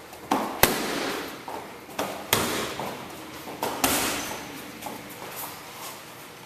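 Gloved kickboxing strikes smacking into a trainer's focus mitts and belly pad: three quick two-hit combinations about a second and a half apart, each ending in a loud sharp smack with a short echo, then only light taps near the end.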